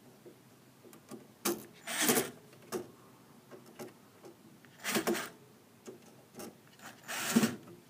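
Bosch cordless screwdriver tightening the screws of a circuit card in short bursts, three stronger ones a few seconds apart with a few lighter clicks between them.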